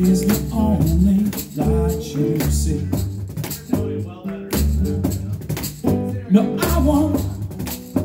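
Live acoustic jam: a steel-string acoustic guitar strummed while a man sings, over hand percussion with repeated low thumps and sharp slaps from a wooden box drum.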